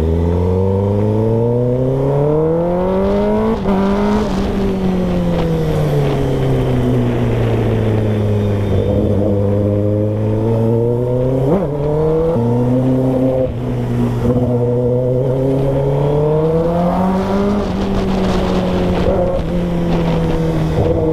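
Kawasaki ZX-10R inline-four engine running under way through the gears. Its pitch climbs for the first four seconds and drops at a gearchange, then climbs again from about twelve seconds in and drops at another shift near the end.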